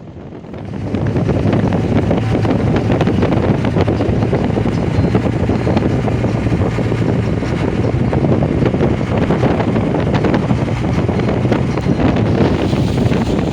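Wind rushing hard over the microphone from a moving vehicle, over a steady low drone of engine and road noise. The rush comes up sharply about a second in and holds steady.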